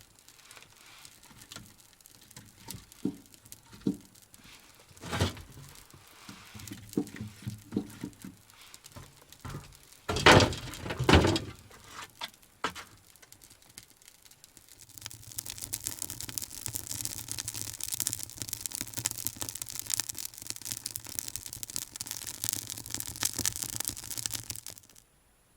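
Wood stove being lit. Scattered knocks and clatter of firewood, loudest about ten seconds in, then from about fifteen seconds the kindling catching and crackling steadily. The crackle cuts off suddenly near the end.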